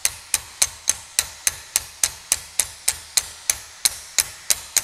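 Hammer tapping a pin through a Farmall H brake band and its linkage: quick, evenly spaced sharp metal taps, about three to four a second.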